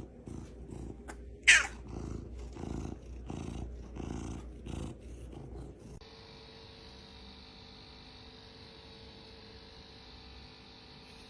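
Cat purring in a steady rhythm of low pulses, with a short high cry about a second and a half in. About six seconds in it cuts off, leaving a quieter steady hum.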